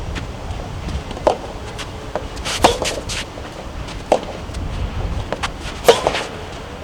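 Soft tennis rally: rackets strike the rubber ball in turn, sharp pops about every one and a half seconds with fainter knocks between. Strong wind rumbles on the microphone.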